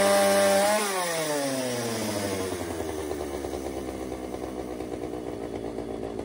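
Two-stroke McCulloch Mac Cat 839 chainsaw held at high revs, then let off the throttle about a second in. The revs drop over a couple of seconds to a steady, even idle: the cheap secondhand saw is running again after its repair.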